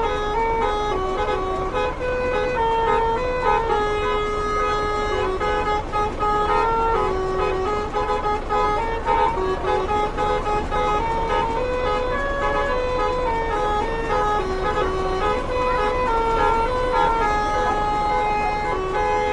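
Winspector telolet basuri bus horn playing a continuous melody, one pitched note at a time, stepping to a new note every half second or so.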